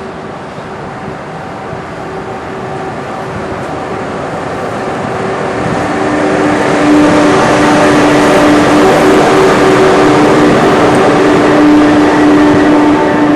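SNCF BB 36015, a BB 36000-class electric locomotive, pulling away and passing close by: a steady hum and whine of its traction equipment with several held tones over running noise, growing louder over the first six seconds or so and staying loud as it rolls past.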